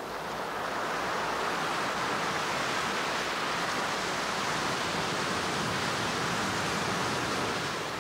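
Recorded ocean surf, a steady rushing wash that swells up over the first second and eases off near the end.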